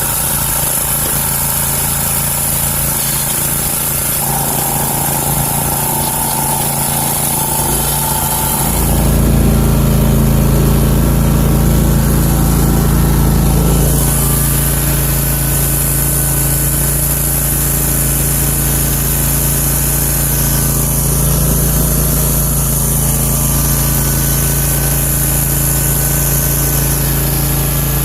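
Country Clipper zero-turn mower's engine running steadily. About nine seconds in it grows louder and deeper for around five seconds, then eases back.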